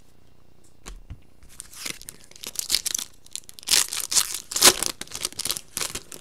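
Foil wrapper of a 2015 Topps Chrome baseball card pack being torn open and crinkled by hand: a run of sharp crackling rustles, loudest a little past halfway.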